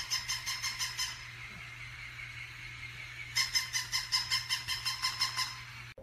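A dog's squeaky toy squeaking rapidly as the dog chews it, about six high squeaks a second. There are two runs, the first lasting about a second and the second about two seconds, with a quieter pause of about two seconds between them.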